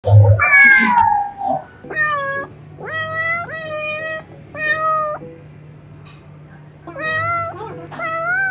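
Domestic cats meowing: a loud yowl falling in pitch at the start, then a run of short meows, each held at a fairly steady pitch. Four come between about two and five seconds in, and two more near the end.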